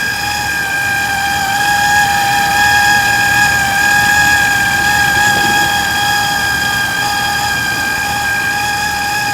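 Jeep Wrangler TJ 4.0 L straight-six idling with a steady, high-pitched squeal from a worn idler pulley bearing. Oiling quiets the bearing only for a moment, and the pulley is judged to need replacing.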